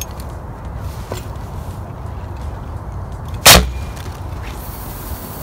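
Fire extinguisher charged with compressed air, rigged to a pipe as a launcher, firing once with a single sharp blast about three and a half seconds in. The blast shoots a 9-ounce weight on an elastic line out of the pipe.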